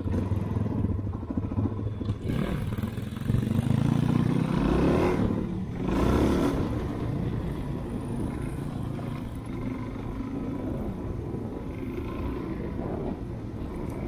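A small dirt-bike engine running in a low gear on a descent. It swells and rises and falls in pitch a few seconds in, then settles to a steadier, slightly quieter run.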